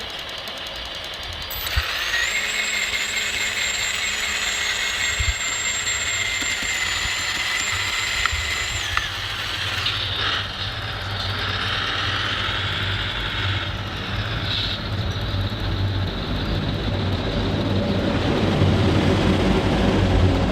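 Whine of radio-controlled construction models' electric hydraulic pumps and motors: a steady high whine starts about two seconds in and stops about nine seconds in, then whines that rise and fall in pitch, with a low engine-like hum growing louder near the end.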